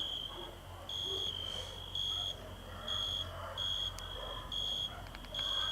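Crickets chirping: a steady high chirp repeating about once a second, each chirp a few tenths of a second long. A faint click about four seconds in.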